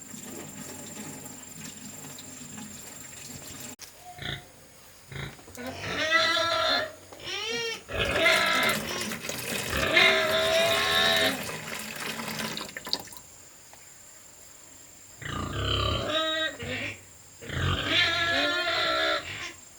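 Animal calls in several bouts, pitched and sliding up and down, with quieter gaps between them.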